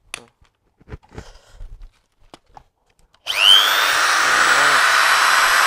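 A few handling clicks, then about three seconds in a 650 W corded 10 mm electric drill is switched on: its motor whines up to speed and runs steadily at full speed.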